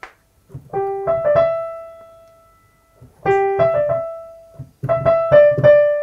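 A digital piano played one-handed: three short, halting phrases of a few notes each, the first about a second in, each left to ring and fade before the next.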